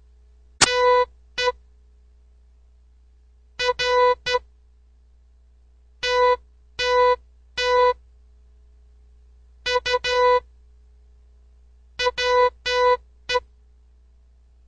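Morse code practice tones: a single steady-pitched beep keyed in short and long strokes (dots and dashes), forming five characters with pauses of about two seconds between them. The characters are played as a test for the learner to decode.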